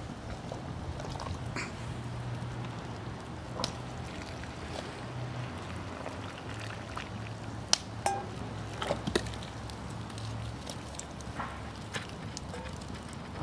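Water poured from an enamel pot into glass jars of green beans, with a few sharp clinks, the loudest about eight to nine seconds in, over a low steady hum.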